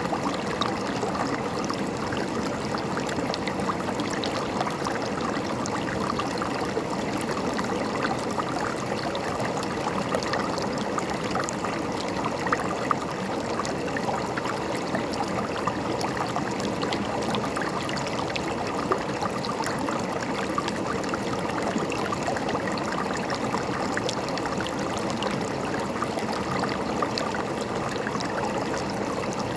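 A river or stream running over rocks, a steady splashing and gurgling rush with small splashes flickering through it.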